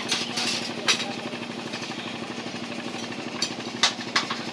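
Boat engine running steadily with a rapid, even knocking beat and a low hum, with a few sharp clicks or knocks over it, loudest about a second in and near the end.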